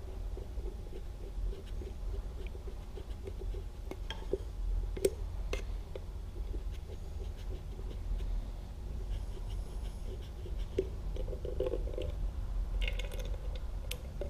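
Faint scattered clicks, knocks and scraping of tools and small parts being handled, over a low steady hum.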